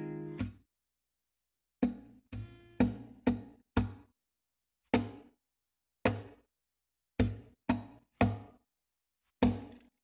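Background music: about a dozen short strummed acoustic guitar chords, each dying away quickly, with dead silence between them.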